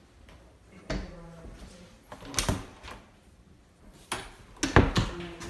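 Several knocks and bumps in a small room, the loudest cluster near the end.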